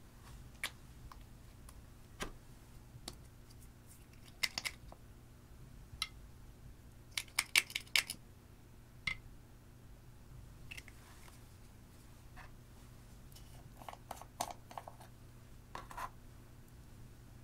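Scattered small clicks and taps of plastic makeup containers, caps and compacts being handled and set down, with a quick run of clicks about halfway through. A low steady hum lies underneath.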